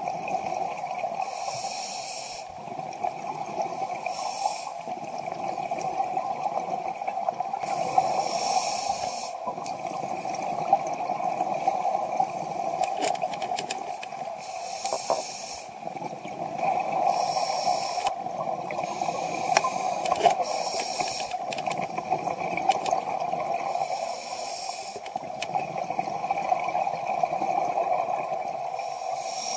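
Scuba diver's regulator breathing heard through an underwater camera housing: a hiss of breath and exhaled bubbles every few seconds over a steady drone.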